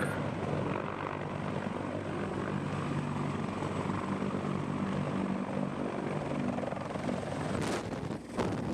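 CH-53 heavy-lift helicopter hovering: a steady rotor and turbine drone with a low hum under it. Near the end come a few loud gusts of wind on the microphone.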